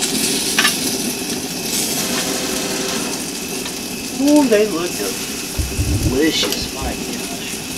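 Metal tongs clicking and scraping on a gas grill's grates as grilled quail are lifted off, over a steady hiss from the grill, with a few sharp clicks.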